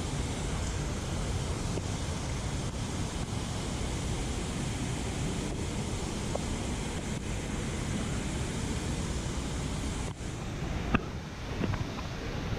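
Steady rushing of water pouring down a dam spillway, with a few sharp clicks and knocks near the end.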